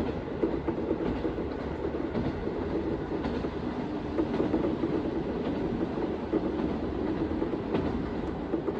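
KiHa 54 series diesel railcar running along the line: a steady rumble of engine and wheels on rail, with a few faint clicks.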